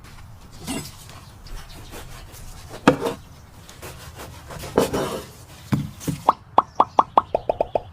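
A few scattered knocks and handling sounds, then a quick run of short pitched glugging plops, about six to seven a second and stepping down in pitch near the end, as of liquid being poured.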